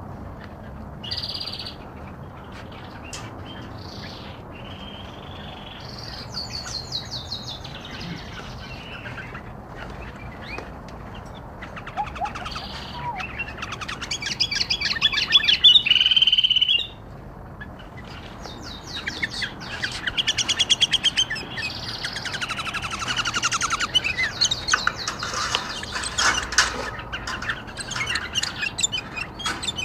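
Pet bulbuls chirping and calling in quick runs of high notes, with a louder burst of calls about fifteen seconds in.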